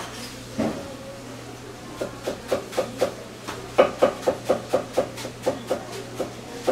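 Knife chopping on a wooden cutting board, a quick run of sharp strokes about four a second, starting about two seconds in.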